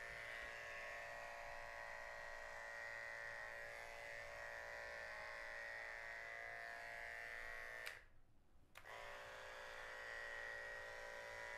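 Professional corded electric pet clipper running with a steady buzz as it trims a long-haired cat's coat. The buzz cuts out for under a second about eight seconds in, then runs on.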